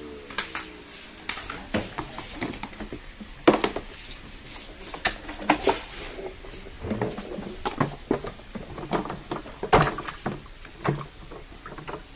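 Irregular clatter of sharp knocks and clicks as the parts of a Numatic WVD900 wet-and-dry vacuum are handled with its motor off, plastic and metal parts bumping together.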